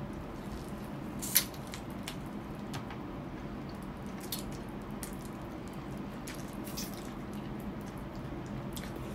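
Wet mouth sounds of someone eating adobo chicken feet: sharp lip smacks and sucking clicks every second or so, the loudest about a second and a half in, over a steady low hum.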